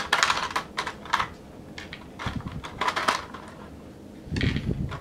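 Small hard plastic action-figure parts and packaging being handled: a quick run of light clicks and rattles at first, then scattered clicks and a couple of soft knocks on the tabletop.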